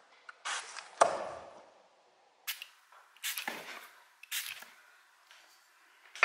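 Water splashing at a bathroom sink as a face is washed, in several short, irregular splashes with quiet gaps between them.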